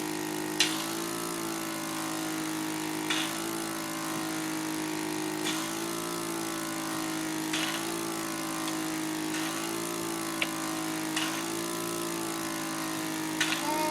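Portable medical suction machine's pump running with a steady hum, clearing secretions from a child's airway. Short sharp clicks come every two to three seconds.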